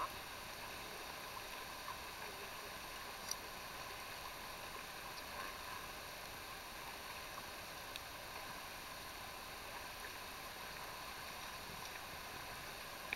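Steady rush of river water around a paddled canoe, with a couple of faint knocks along the way.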